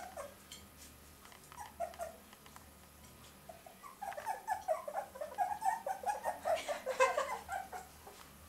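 Fox terrier puppies whimpering and squeaking in short, high calls, a few at first and then a busy run of them through the second half.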